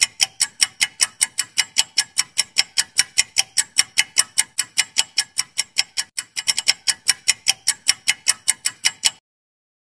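Clock-ticking sound effect for a quiz countdown timer: fast, even ticks, about five a second. There is a brief hitch about six seconds in, and the ticking stops shortly before the end.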